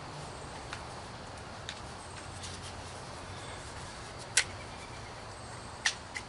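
Plastic parts of an electric pressure washer's spray gun and hose being handled: a few light taps and two sharper clicks, over a steady low background hum.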